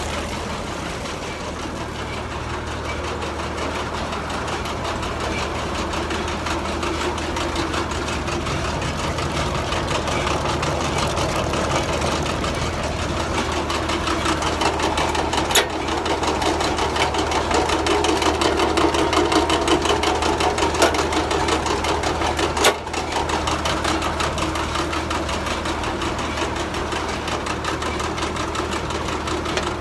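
An engine idling steadily, with a sharp click about halfway through and another a few seconds later.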